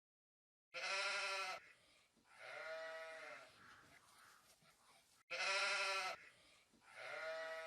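Bleating: four calls in two identical pairs, each a loud call followed by a softer one, the second pair after a brief dropout.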